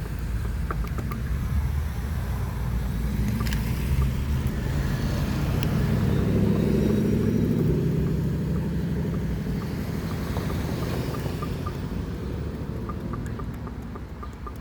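A car passing through the intersection, its engine and tyre rumble building to a peak about halfway through and then fading away.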